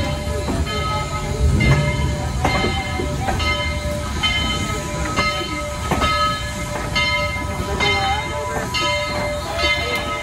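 A slowly passing train, the Southern 4501 steam locomotive with a diesel and freight cars, rumbling by close at hand. A locomotive bell rings slightly more often than once a second over the rumble.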